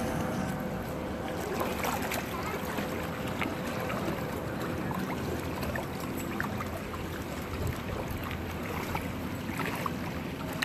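Floodwater sloshing and splashing as people wade waist-deep beside a small boat, a steady churning with many small splashes.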